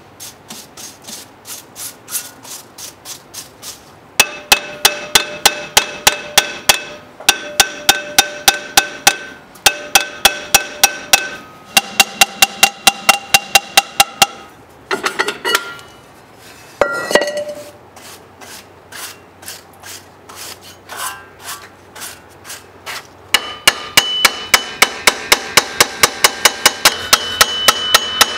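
A hand hammer striking metal in quick bouts, about four blows a second, each blow ringing with a clear metallic tone. The first few seconds are lighter taps, and there is a short break with some scraping in the middle before heavier blows resume.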